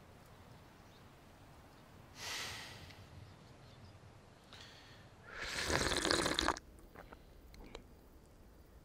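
A person breathing out heavily twice: a short breath about two seconds in, then a longer, louder sigh lasting about a second, a few seconds later.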